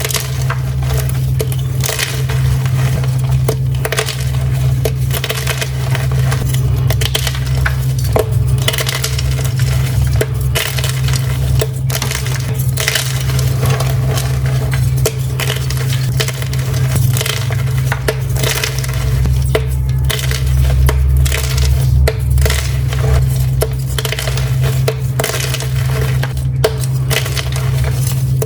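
Pink and purple dyed gym chalk being crushed: dense, irregular crunching and crumbling that goes on throughout, over a steady low hum.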